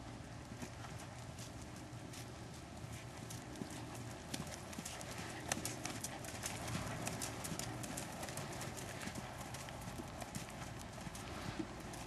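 Hoofbeats of a horse cantering on a sand arena, a run of dull thuds that grow louder and closer from about four seconds in.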